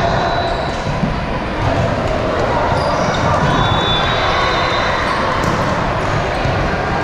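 Indoor volleyball rally: the ball being served and played, with sneakers moving on the hardwood court, over steady echoing noise in a large gym.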